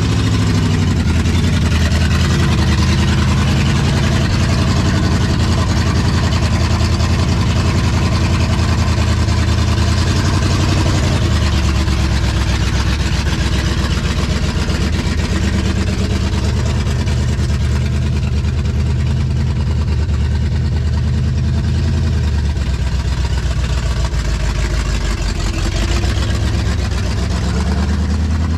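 Car engine with a GM starter running steadily, its speed shifting a few times, most noticeably about eleven seconds in and again near the end.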